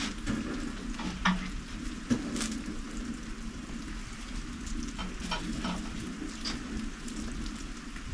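Glass canning jars set down and shifted on a wooden board: two sharp knocks in the first couple of seconds and several lighter clinks later. Under them runs a steady crackling hiss from rain and the open wood fire.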